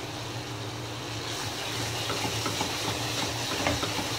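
A thick, grainy reduced-milk mixture sizzling in a non-stick pan while a wooden spatula stirs and scrapes it, with small crackles. It is being roasted until it dries, the last stage of cooking milk cake. The sizzle grows a little louder about a second in, over a steady low hum.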